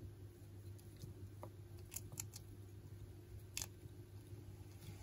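A few faint, sharp clicks and small scratchy sounds from pet gerbils, scattered through a quiet room over a low steady hum.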